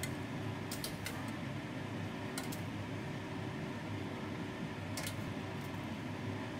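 A steady machine hum, with a few light clicks about a second in, around two and a half seconds in, and around five seconds in.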